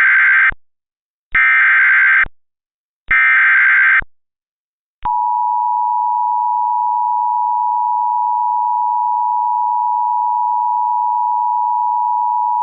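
Emergency Alert System SAME header: three harsh digital data bursts, each about a second long. About five seconds in, the steady two-tone EAS attention signal (853 and 960 Hz) begins and holds, announcing that a voice alert follows.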